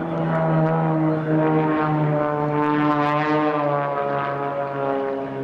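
A propeller airplane's engine running at a steady pitch as the plane flies by.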